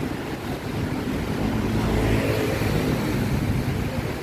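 Road traffic passing along a city street, with one vehicle's engine swelling as it passes close, loudest about halfway through, then fading.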